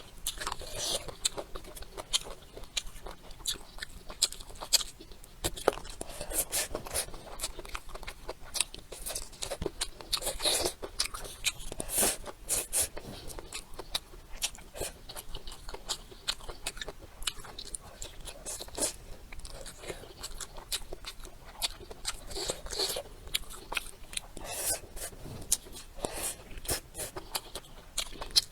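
Close-miked eating sounds: a person biting and chewing food, with many irregular clicks and crunches from the mouth.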